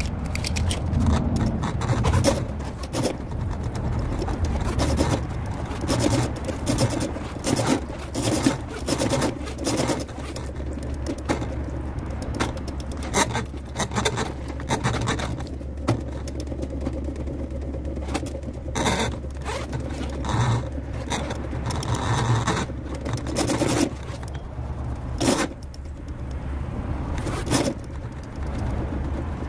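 Electric drum drain-cleaning machine running steadily, its spinning cable being fed into a kitchen drain line through a cleanout to clear a backup. Under the steady motor hum the cable scrapes and clatters irregularly against the pipe.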